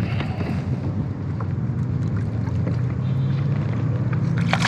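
KastKing Zephyr BFS baitcasting reel being cranked to bring in a small hooked fish, over steady wind noise on the microphone and water lapping against a kayak hull.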